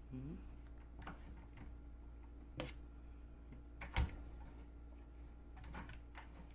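A cat's paws tapping and knocking on a wooden cat-tower board and against a metal bolt standing on it: a few light clicks, with a sharper knock about four seconds in.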